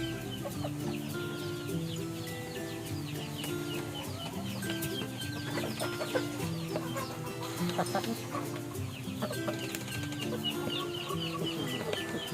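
Chickens clucking over steady background music with held, stepping notes.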